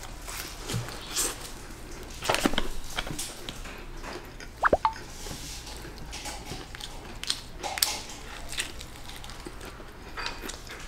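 Close-up eating sounds: bites into a crispy fried chicken cutlet, with wet chewing and lip smacks. The sounds come in scattered short clicks and squelches, and the sharpest click is about halfway through.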